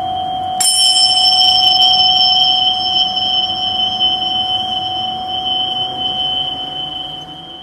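A pair of tingsha (small Tibetan cymbals) struck together about half a second in, ringing with a high, clear, slowly fading tone over the lower steady hum of a singing bowl.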